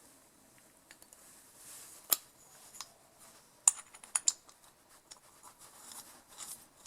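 Scattered light clicks and taps of small carburetor parts being handled and fitted by hand, a few sharp ticks about two and four seconds in over a faint scratching.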